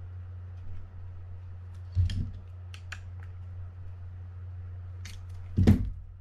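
Clicks and knocks of metal parts on a Shimano Baitrunner 8000D spinning reel being refitted and handled, a few light ticks between two heavier knocks, the loudest near the end, over a steady low hum.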